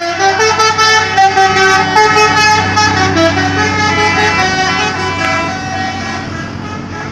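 Telolet horn, a multi-tone musical vehicle horn, playing a quick tune of stepping notes over a steady low engine hum, loud at first and fading over the last two seconds.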